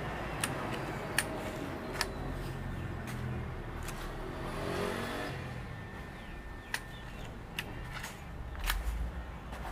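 Low steady rumble of road traffic, swelling about four to five seconds in, with a handful of short sharp clicks scattered through it.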